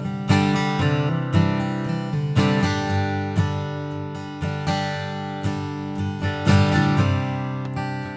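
Martin D-18 Modern Deluxe dreadnought acoustic guitar, with mahogany back and sides and a torrefied top, being strummed: accented chord strokes about once a second, each ringing on into the next.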